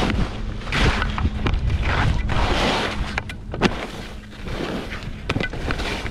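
Skis scraping and carving over packed, bumpy snow, the hiss surging with each turn about once a second, with wind buffeting the body-mounted camera's microphone as a steady low rumble. A few sharp clicks and knocks sit among the turns.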